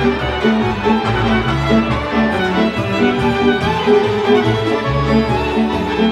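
Live band playing a kolo, a Balkan circle-dance tune: two violins bow the melody over a pulsing bass line.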